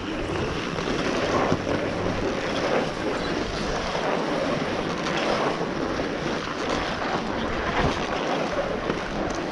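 Wind rushing and buffeting over the microphone of a camera carried down a groomed ski run, with the hiss and scrape of edges sliding over the packed corduroy snow as a steady noisy rush.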